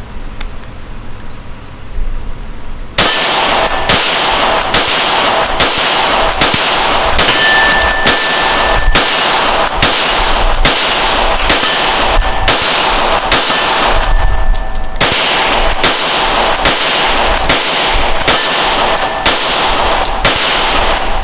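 Springfield Armory 1911 DS Prodigy 9mm pistol fired in a steady string of shots, about two a second, starting about three seconds in with a brief break about two thirds of the way through. The shots are subsonic standard-pressure 9mm full metal jacket flat point loads.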